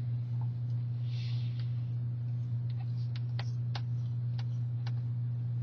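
Steady low electrical hum, with a brief soft brushing sound and a scatter of light clicks and ticks as a soldering iron and steel wool are handled on a bench.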